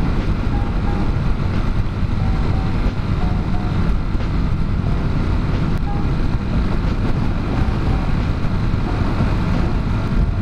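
Motorcycle running at road speed with wind rushing over the camera microphone: a loud, steady noise heaviest in the low end.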